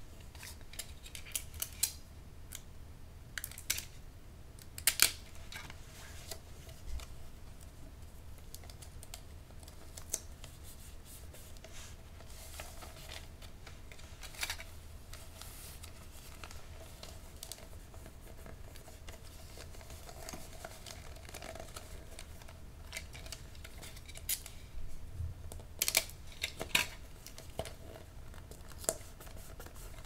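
Gift-wrapping sounds close to the microphones: scattered crinkles, rustles and sharp clicks as paper and wrapping supplies are handled, with a cluster of them near the start and another near the end, over a faint steady hum.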